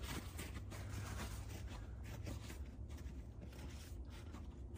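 Faint rustling and light scraping of hands and clothing as a flame is held to a firecracker fuse, over a low steady rumble.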